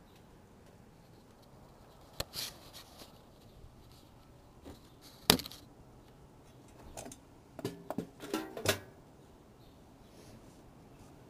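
A few scattered sharp clicks and knocks from objects being handled, the loudest about five seconds in. A short clatter of several clicks with a brief ring follows a little past eight seconds.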